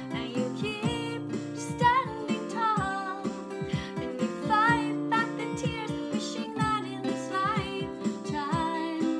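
A woman singing a slow song with a wavering vibrato on her held notes, accompanied by a strummed acoustic guitar.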